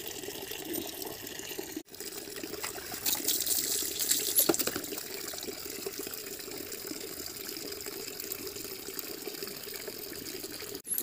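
Water running steadily from a tap into a half-full plastic bucket, with louder splashing for a couple of seconds around the middle.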